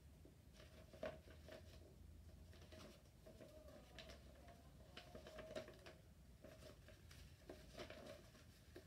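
Faint rustling and crinkling of a sheet of white paper being folded and creased flat by hand on a wooden floor, in a string of small crackles and taps.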